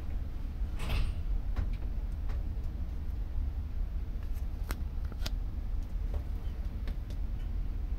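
Steady low rumble aboard a ferry under way, with a few scattered sharp clicks and ticks, a small cluster of them about a second in.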